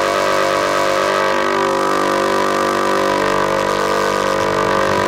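Thor Polysonic Synthesizer in Reason 5 sounding one steady held note with many overtones, a square-wave patch played from the computer keyboard's G key.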